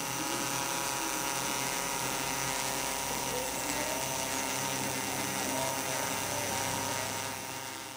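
Mikrokopter L4-ME quadcopter hovering on GPS position hold, its four brushless motors and propellers making a steady, many-toned whine and buzz. The sound fades out near the end.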